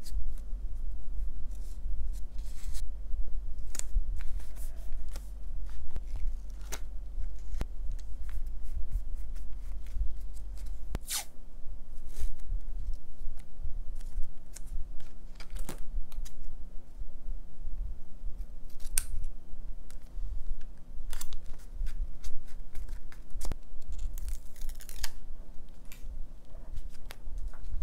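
Close-up crafting sounds: scissors snipping and paper stickers being handled and peeled, in scattered short clicks and rustles, with a longer rustle near the end. A steady low hum runs underneath.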